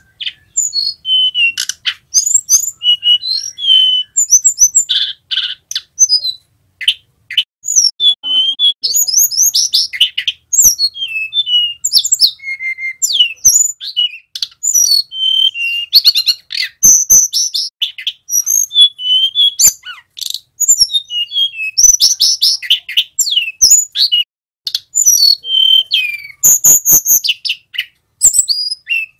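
Male tledekan gunung, a blue flycatcher, singing a long, varied song of fast trills and rising and falling whistled notes in quick phrases, with sharp clicks now and then.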